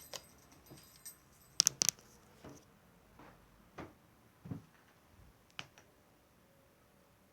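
Scattered clicks and taps from small objects being handled as ASMR triggers: two sharp clicks about one and a half seconds in, then a few softer taps spread out, and nothing more in the last second or so.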